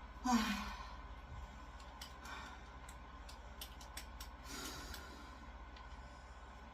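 A woman's voiced sigh as she breathes out about half a second in, falling in pitch. It is followed by soft breathing and a few small clicks and rustles as she shifts position.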